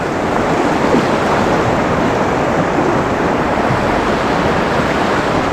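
Fast river current rushing through a rocky riffle, a steady loud rush of water.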